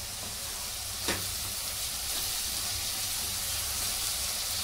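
Chopped vegetables (cabbage, carrot, capsicum, peas) sizzling as they stir-fry in oil in a pan, stirred with a spatula. There is a steady hiss and a single sharp click about a second in.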